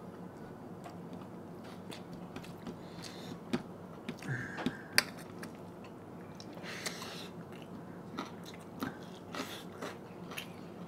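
Mouth sounds of people chewing and eating a pork curry meal, with scattered small clicks and taps, the sharpest about five seconds in.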